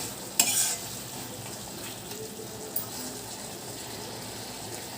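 A pan of vegetable curry with mustard paste sizzling steadily on the stove, with one short clatter of the spatula against the pan about half a second in.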